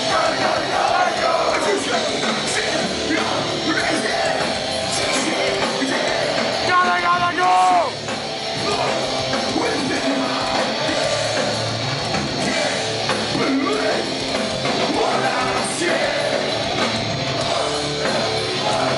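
Hardcore punk band playing live, with shouted vocals over loud, dense rock instrumentation. About seven seconds in, a louder pitched note slides downward.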